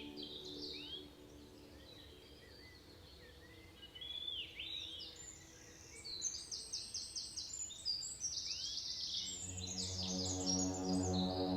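Birds calling: repeated short upswept chirps, joined about six seconds in by rapid trilled series of high notes. A droning ambient music pad fades out near the start and comes back near the end.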